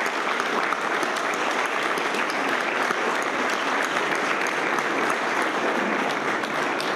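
A roomful of people applauding, steady and sustained.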